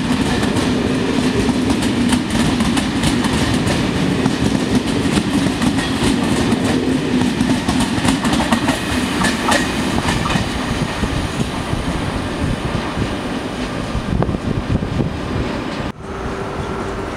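Intercités Corail passenger coaches passing at speed, steady rolling noise with repeated clicks of wheels over rail joints, easing off as the end of the train goes by. About 16 seconds in it cuts abruptly to a quieter steady station hum.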